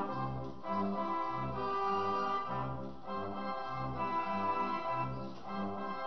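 Homemade 43-note air calliope playing a tune: steady organ-like pipe tones, with a low bass note alternating with a chord at a steady beat.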